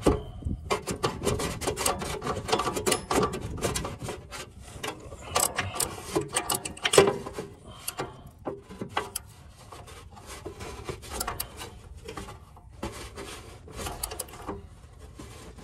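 Ratchet clicking in rapid, irregular runs on an oxygen-sensor socket as the sensor is tightened into the exhaust pipe, mixed with metal scraping and rubbing. The clicking eases off for a few seconds past the middle.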